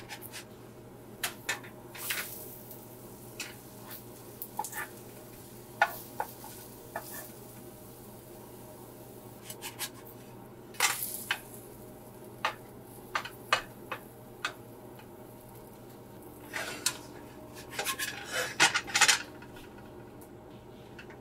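A spatula scraping and tapping against a nonstick frying pan as pancakes are flipped and lifted out: scattered clicks and scrapes, with a denser run of scraping near the end.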